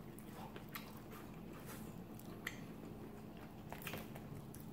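Faint eating sounds at a crawfish boil: chewing, with scattered soft clicks of crawfish shells and food being picked through by hand, over a steady low hum.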